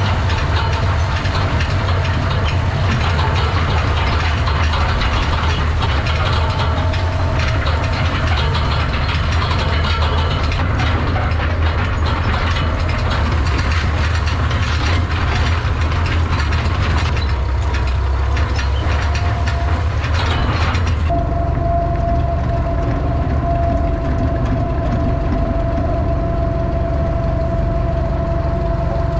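Tractor engine running steadily under a dense mechanical clatter. About twenty seconds in the sound changes abruptly to a steadier engine note with a thin steady whine.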